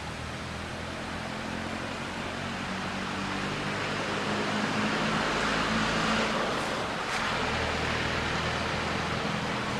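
Motor vehicle passing: a low engine hum under a broad rushing noise that swells to its loudest about six seconds in, then eases a little.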